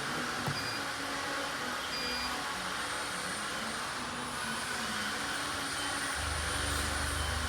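A switched-on CNC vibrating-knife cutting machine runs idle with a steady mechanical whir, and a deeper low hum joins about six seconds in.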